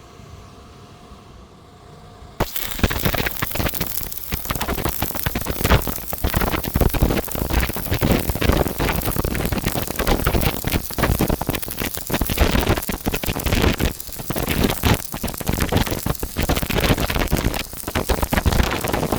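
Stick (arc) welding on a round steel tube: the arc strikes about two seconds in, and an irregular crackling and sputtering follows without a break.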